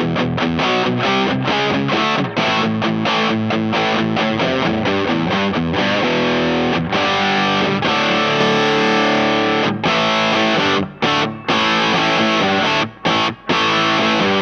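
Distorted electric guitar played through the Space Sounds Spacecraft, a Rat-style distortion pedal: a fast chopped chord riff, then held ringing chords, then short stabbed chords with brief gaps near the end.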